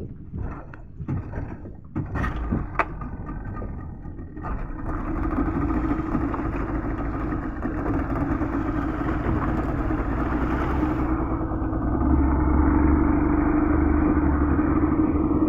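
Outboard motor on a small fishing boat: a few clunks and knocks at the motor, then from about four seconds in the motor runs steadily as the boat moves off, getting louder about twelve seconds in as it speeds up.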